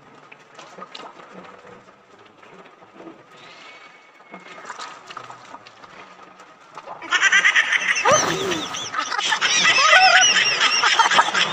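Person making loud honking, snorting noises through the nose after surfacing from the river water, starting suddenly about seven seconds in and running on with wavering, goose-like pitch. Before it, only faint splashing water.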